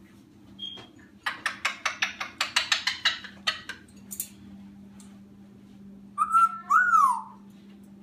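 Congo African grey parrot making a quick run of sharp clicks, about seven a second for two and a half seconds, then about six seconds in a loud whistle lasting about a second that rises and falls in pitch.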